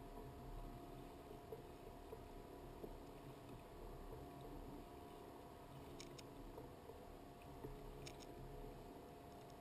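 Near silence: a faint steady hum with a few soft clicks about six and eight seconds in.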